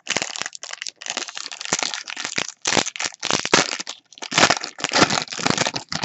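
Wrapper of a hockey trading-card pack being torn open and crinkled by hand: irregular crackling and rustling with brief pauses.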